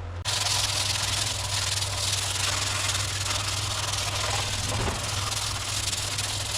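Compressed-air spray gun spraying primer: a steady hiss that starts suddenly a moment in, over a steady low hum.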